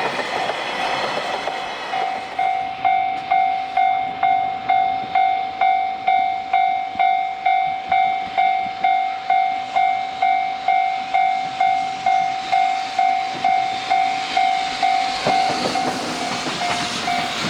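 Japanese level crossing warning bell ringing steadily, about two strokes a second. A passing train's rushing wheel noise fills the first couple of seconds and swells again near the end.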